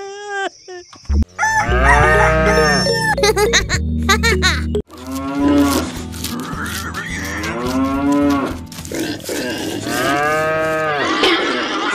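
Cow mooing, a dubbed sound effect: about three long, drawn-out moos in the second half, over a steady low background beat.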